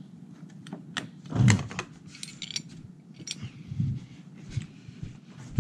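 Light metal clicks and rattles from a hand torque tool working a roof-rack foot clip, with one heavy thump about a second and a half in and a few softer knocks later.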